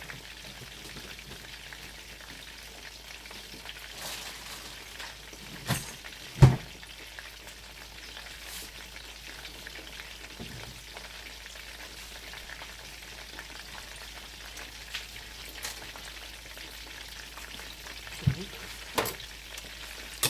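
Chicken cutlets made from chicken tenders frying in a pan of hot oil, a steady sizzle. A few sharp knocks cut through it, the loudest about six seconds in and two more near the end.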